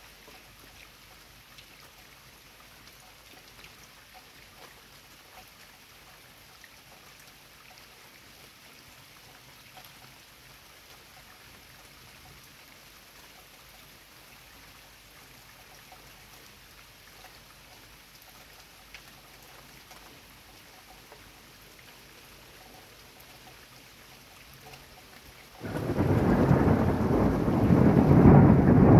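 Steady light rain with scattered drip ticks. Near the end a sudden loud clap of thunder breaks in and rumbles on.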